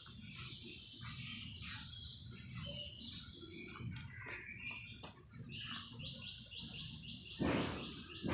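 Small birds chirping repeatedly, with a quick run of chirps about six seconds in, over a faint steady high whine. One brief louder noise near the end.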